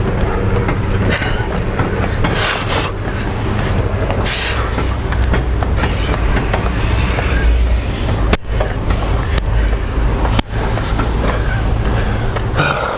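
Steady low rumble of a Ford F-150 Raptor pickup rolling slowly over asphalt as it is pushed by hand, with scattered small clicks and crunches.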